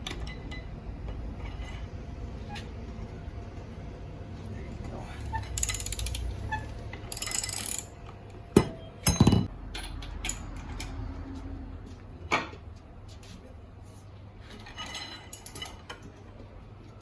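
Hand socket ratchet clicking in two quick bursts as it is worked back and forth on a 21 mm wheel nut, followed by two sharp knocks of metal tools and a few lighter clinks.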